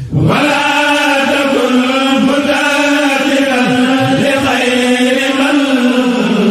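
Sufi devotional chanting in Arabic, a Mouride khassida, sung in one long drawn-out phrase with a slowly wavering pitch.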